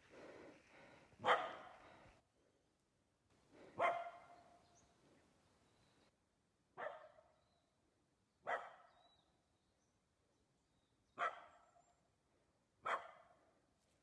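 A dog barking: six single barks, one every two to three seconds.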